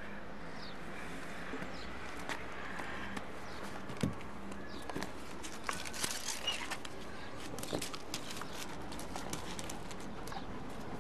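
Irregular rustling, clicks and scuffing steps, thickest around the middle, with a few short faint high whines.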